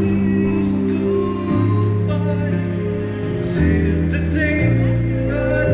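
Music with a deep bass line of long held notes, each changing about once a second, and a voice singing over it.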